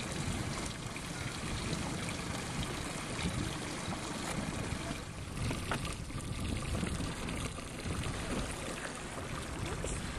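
Steady rushing and lapping of sea water against the hull of a small boat, over a low rumble of wind on the microphone.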